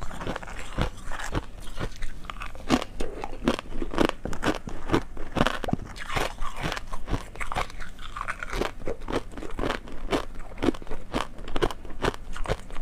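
Frozen foam ice and thin hard ice being bitten and chewed: a dense, irregular run of sharp crunches, picked up close on a clip-on microphone.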